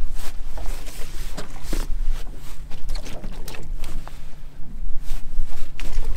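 Scattered knocks and clatter of lobster-pot gear being handled aboard a small boat, over a steady low hum.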